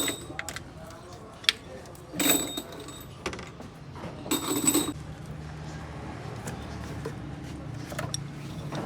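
Workshop noises from work on a car engine: scattered metal clicks and knocks, two short noisy bursts about two and four and a half seconds in, then a steady low hum.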